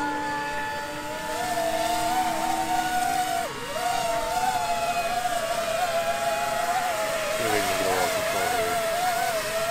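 Electric motors and propellers of a three-rotor VTOL tricopter drone whining in flight. The pitch wavers steadily as the throttle shifts. About eight seconds in, a lower tone falls briefly in pitch as the drone makes a low pass.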